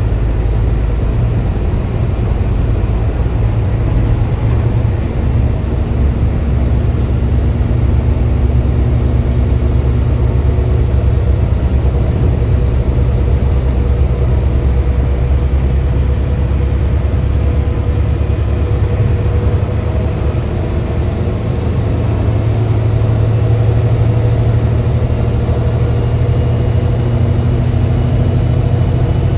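Mercedes-Benz bus's engine running steadily with a deep low rumble, heard from inside the driver's cabin, its strength rising and falling slightly as it pulls along the ghat road.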